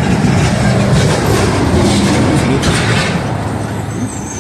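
A large vehicle passing close by: a loud, rough rumble that swells to a peak and then fades away.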